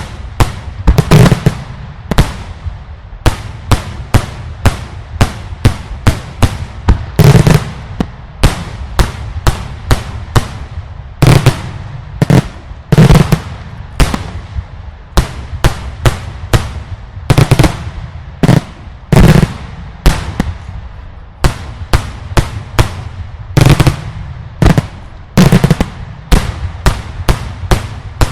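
Daylight fireworks going off in a continuous barrage of sharp, loud bangs, about three or four a second, with heavier deep booms every second or two.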